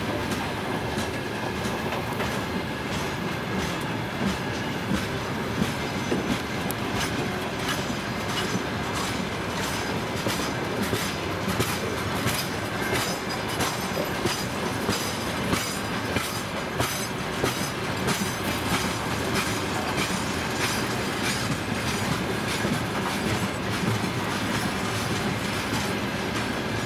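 Freight train rolling steadily past, its wagon wheels clacking over rail joints in a continuous run of sharp clicks.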